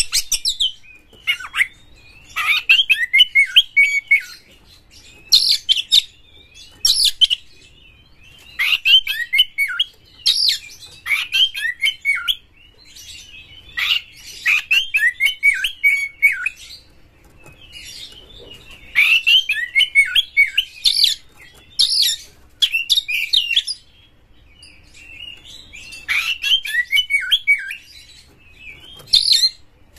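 Oriental magpie-robin singing in about a dozen bursts of rapid, varied, high notes, each phrase lasting a second or two, with short pauses between them.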